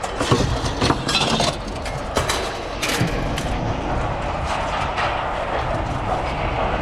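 Pieces of scrap metal clanking as they are tossed and dropped, several sharp clinks and knocks spaced out over the first few seconds, over a steady low rumble of a vehicle engine.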